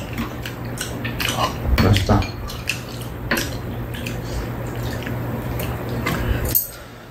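Metal spoons and chopsticks clinking and scraping against ceramic bowls during a meal, as scattered light clicks. A steady low hum underneath cuts off near the end.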